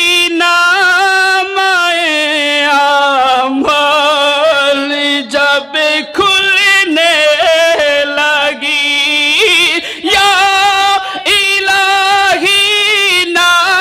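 A male voice singing an Urdu naat, in long drawn-out phrases of held notes with wavering, ornamented turns and short breaks between them.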